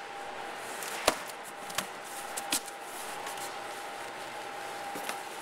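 Corrugated cardboard box being opened by hand: a few sharp cardboard knocks and rustles as the taped top flaps are pulled apart and the film-wrapped insert inside is handled. A faint steady tone hums underneath.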